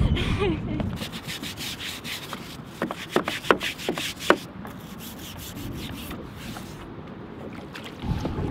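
An anchor line and chain being pulled in by hand over a boat's bow: rubbing and scraping with a run of sharp clicks and knocks for a few seconds, then a quieter steady rush.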